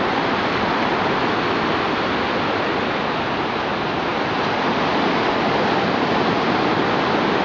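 Ocean surf breaking and washing through the shallows: a steady, even rushing.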